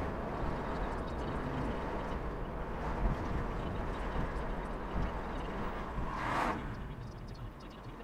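Steady low cabin noise inside a minivan. About six seconds in there is one short rushing sound, and the noise grows a little quieter near the end.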